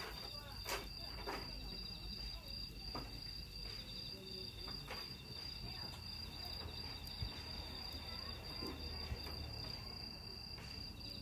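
Crickets chirping steadily in a high, continuous trill, with a few faint clicks now and then.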